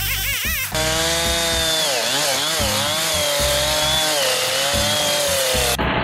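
Two-stroke gas chainsaw cutting through a pine log, its engine pitch dipping and recovering as the chain loads up in the wood. A moment of music comes first, and near the end the sound cuts abruptly to a lower, steadier engine note.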